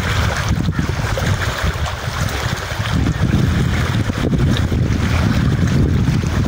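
Wind buffeting the microphone in a low, gusty rumble, over small waves lapping and splashing against the rocks at the water's edge.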